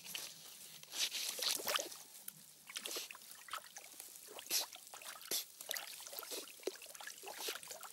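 Honey badger splashing and sloshing in a shallow pool as it pushes a hinged tortoise under the water: a run of irregular small splashes and drips, a few louder than the rest.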